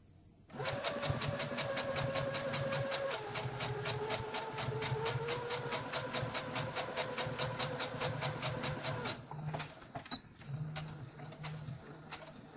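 Electric home sewing machine stitching through layered cotton fabric: a steady motor hum with a quick, even beat of needle strokes. It starts about half a second in and stops about nine seconds in, its pitch dropping slightly after about three seconds.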